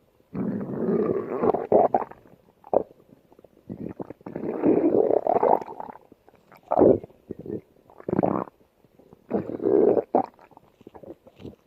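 Stomach growling: a series of about eight gurgling rumbles, the two longest lasting around two seconds each near the start and in the middle, with shorter growls between and after.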